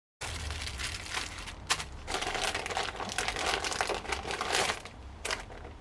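Plastic packaging crinkling and crackling as a parcel of carburetor rebuild kit parts in bubble-wrap bags is unpacked and handled, irregular and heavier from about two seconds in.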